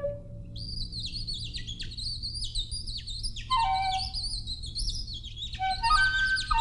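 Bird twittering: a fast run of high chirps and trills begins about half a second in and keeps going. Lower, falling whistled notes join in twice, around the middle and near the end, over a low steady hum.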